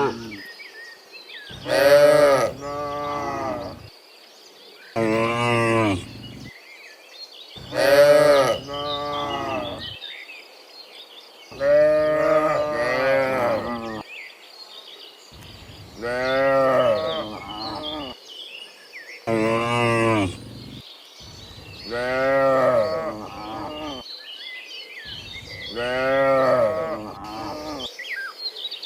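Cattle mooing again and again: about eight long, loud moos, one every three to four seconds, some of them breaking into two parts.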